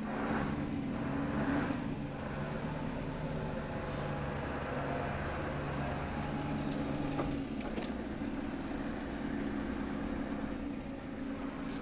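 Scania 144L 460's 14-litre V8 diesel engine running steadily as the truck drives slowly, heard from inside the cab. The engine note changes slightly about seven seconds in.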